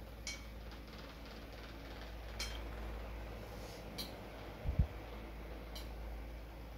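A fork clinking lightly on a china plate as lamb and couscous are scooped up, a few scattered taps, with one dull low thump just before five seconds in over a steady low hum.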